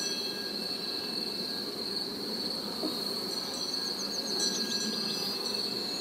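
Crickets chirring steadily at a high pitch, with a short run of quicker, higher chirps a little past the middle.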